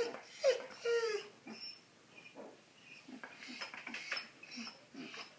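Ten-day-old puppies squeaking and whimpering: three short cries falling in pitch in the first second or so, then fainter small clicks and snuffles.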